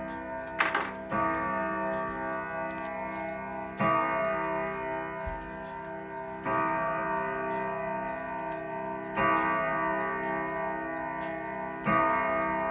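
Urgos grandfather-clock movement striking the hour on its steel chime rods. A chord of long ringing tones is struck about every three seconds, five times in all, each ringing on into the next, with the pendulum ticking underneath. A brief noisy knock comes about half a second in.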